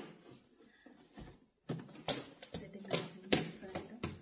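A cardboard shipping box being handled: after a quiet moment, a quick run of knocks, taps and scrapes of cardboard as it is set down and its flaps are worked at.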